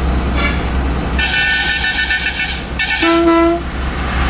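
Truck air horns honking while overtaking another truck: a short toot, then a long high-pitched multi-tone horn for about a second and a half, then a lower horn note briefly, over the steady low drone of a diesel truck engine.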